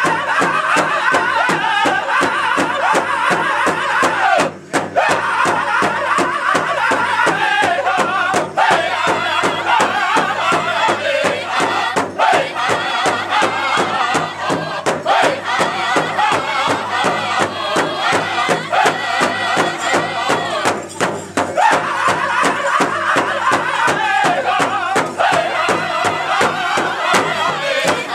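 Powwow drum group singing together while beating a large shared drum in a steady beat. The sound drops out briefly about four and a half seconds in and dips again around twenty-one seconds.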